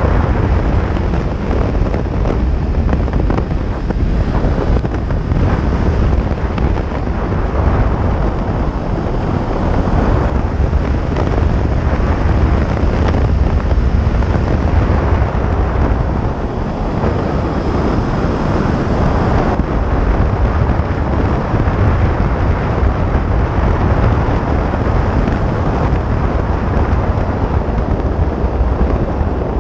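Steady wind noise buffeting the microphone of a sport motorcycle riding at speed on an open road, heaviest in the low end.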